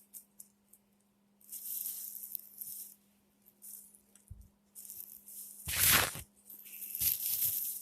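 Short bursts of scratching and rubbing as the inside of an old Singer sewing machine is cleaned of dust and hair, with a louder knock-like scrape about six seconds in.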